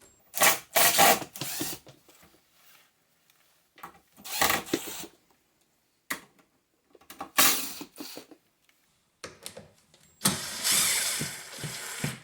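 Cordless drill/driver working the door-hinge screws in four short bursts, the last and longest near the end.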